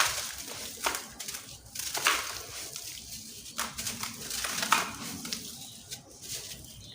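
Dry sand-cement chunks crunching and crumbling, with a few sharp cracks as pieces break apart.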